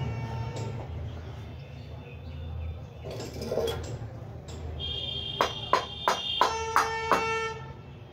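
Light metal-on-metal taps, about three a second for two seconds in the second half, each leaving a clear ringing tone, over a steady low hum.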